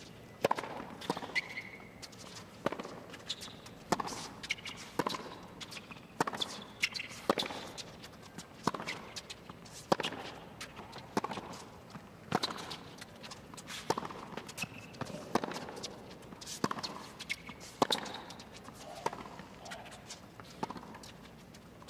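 Tennis rally on a hard court: the ball is struck back and forth by rackets, with sharp hits and bounces about once a second over faint crowd ambience.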